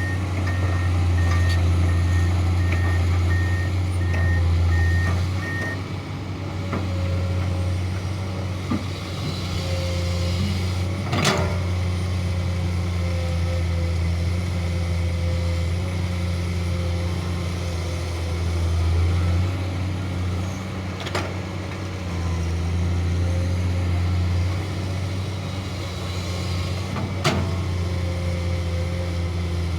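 Komatsu PC200 hydraulic excavator's diesel engine running steadily under work. A beeping alarm repeats evenly for the first several seconds and then stops. Three sharp knocks come later, spread several seconds apart.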